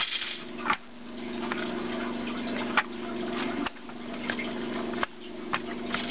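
Several sharp clicks and knocks from a hand handling the camera and plastic Lego bricks, over a steady low hum with a hiss above it. The hum drops away at each knock and then slowly comes back.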